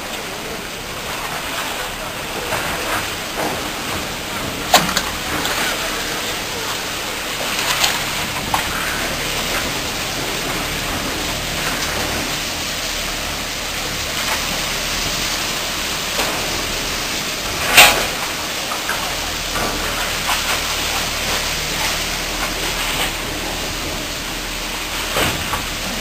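Steady rushing noise of wind and water, with a few sharp knocks; the loudest knock comes about eighteen seconds in.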